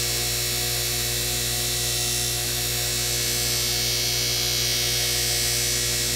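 8-inch bench grinder running steadily at speed, a constant motor hum with a high hiss, while a knife edge is polished against its compound-loaded buffing wheel.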